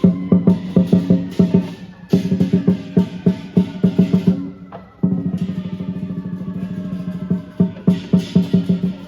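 Lion dance drumming: a large Chinese lion drum beaten in quick, accented strokes with cymbals crashing over it. The beat breaks off briefly about two seconds in and again around five seconds in, where the drum goes into a fast, even roll. Heavy accented beats with cymbals return near the end.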